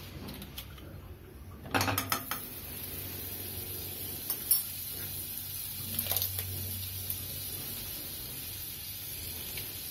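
A cube of butter going into a hot metal kadai with a few clattering knocks about two seconds in. A steady sizzle follows as the butter melts, with an odd knock of utensils against the pan.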